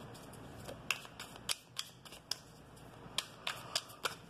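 Tarot deck being shuffled by hand: a run of sharp, irregular card snaps and clicks, a few each second.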